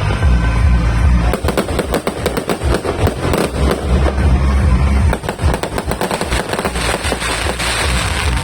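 A multi-shot fireworks cake firing a rapid, dense barrage of bangs and crackling pops, starting about a second in, over a low rumble.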